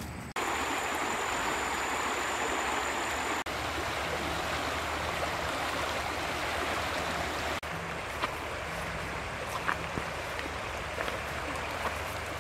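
Flowing stream or river water rushing steadily. It drops abruptly to a softer rush about seven and a half seconds in, with a few small clicks after that.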